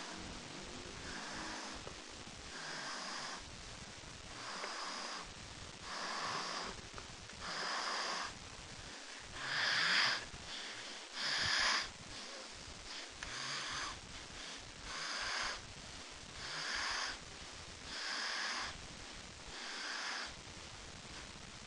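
A sleeping person snoring in a steady rhythm, one thin, hissy snore about every 1.7 seconds with no deep rumble. The two loudest snores come around the middle.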